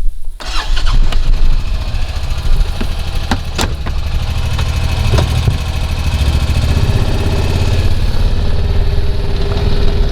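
A vehicle engine starts and then runs with a steady low drone, with a few sharp knocks or rattles along the way.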